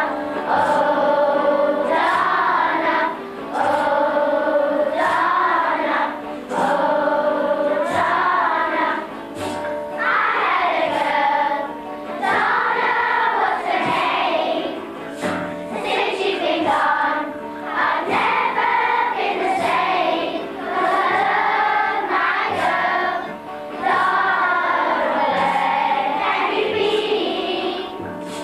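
A group of children singing a song together in phrases of a couple of seconds each.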